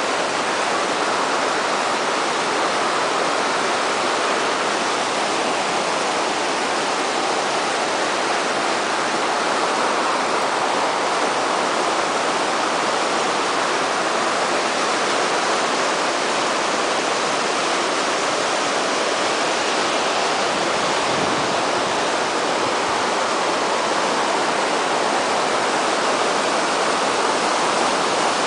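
River rapids: water rushing steadily over and around rocks in a shallow, fast-flowing river.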